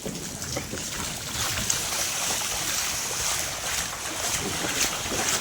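Steady rain falling into water pooled on a flat roof, with light splashing and sloshing in the water.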